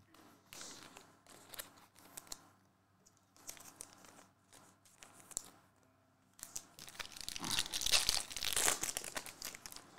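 Trading cards flicked and slid against each other in the hands, with faint scattered clicks and rustles. About six and a half seconds in, a foil trading-card pack wrapper is torn open and crinkled as it is peeled back, louder than the card handling, and fades about half a second before the end.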